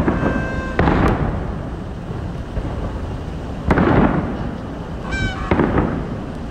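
Aerial firework shells bursting overhead: four deep booms, each followed by a rumbling echo. Two come in the first second, one just before four seconds and one about five and a half seconds in. Short pitched tones sound in the first second, and again just before the last boom.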